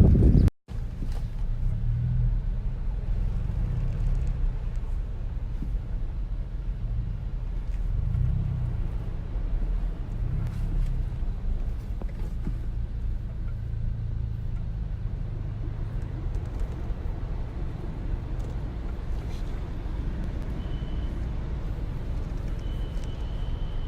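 Steady low rumble of a car running, swelling and easing slowly, with a brief dropout about half a second in.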